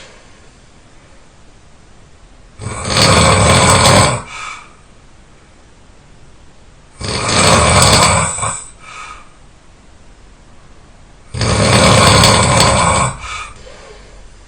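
A person snoring loudly: three long snores, one about every four and a half seconds, each lasting one and a half to two seconds and trailing off in a short, fainter breath.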